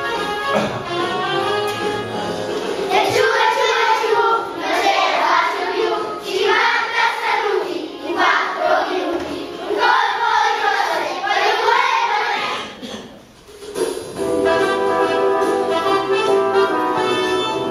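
Recorded backing music playing, with children singing over it from about three seconds in; near the end the singing stops, there is a brief lull, and the instrumental music carries on.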